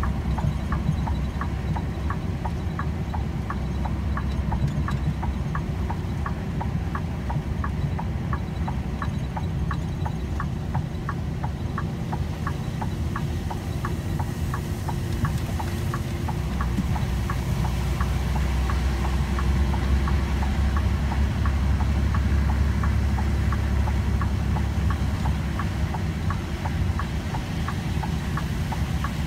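A vehicle driving slowly over a muddy dirt track, a steady low engine and tyre rumble, with a regular light ticking about three times a second.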